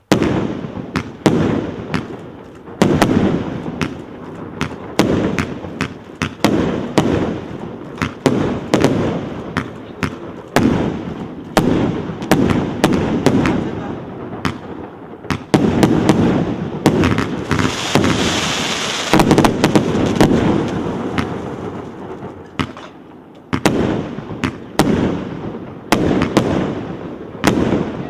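Consumer fireworks cake (the "Three Wishes" battery) firing shot after shot. Sharp launches and bursts come in rapid volleys, each followed by a short echoing tail. A denser, hissier stretch comes about two-thirds of the way in.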